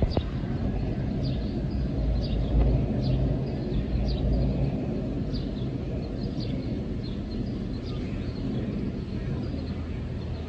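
City transit buses idling, a steady low engine rumble that swells a little a few seconds in. Short high chirps repeat above it about once or twice a second.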